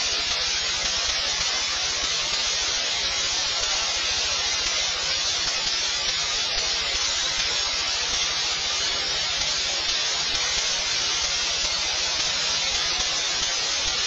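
Steady, even hiss like static noise, without pitch or rhythm and at an unchanging level.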